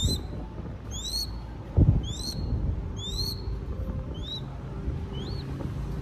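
Nestling crested goshawk calling: six high-pitched notes, each rising then falling, about one a second and getting fainter toward the end. These are a hungry eyass's food-begging calls. A dull thump comes about two seconds in.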